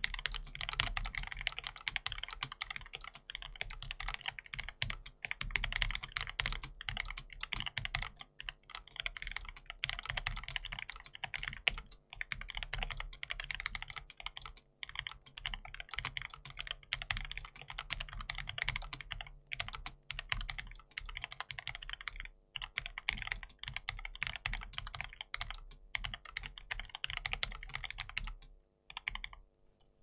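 Fast, continuous typing on a TES68 budget mechanical keyboard kit: a dense stream of keystroke clacks with short pauses, and a brief stop just before the end.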